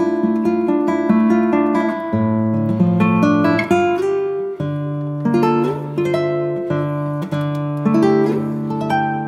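Background music: acoustic guitar, picked and strummed in a steady rhythm.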